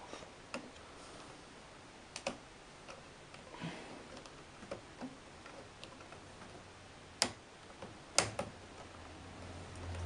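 Scattered sharp clicks and small knocks from a laptop-size RAM module being handled and pushed into the memory slot of a 2006 20-inch iMac Core Duo. The loudest clicks come about seven and eight seconds in, as the module seats.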